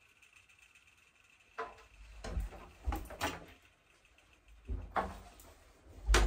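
A door being opened and handled: a sharp click, then rattling and knocks, and more knocks with a heavy low thud near the end.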